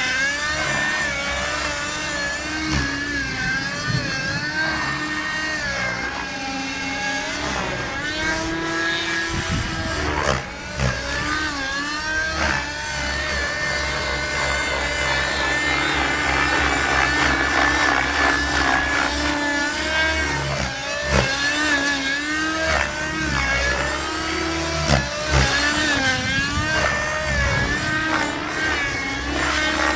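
O.S. .50 nitro glow engine and rotor of a radio-controlled helicopter running hard during aerobatic flight, its pitch rising and falling again and again.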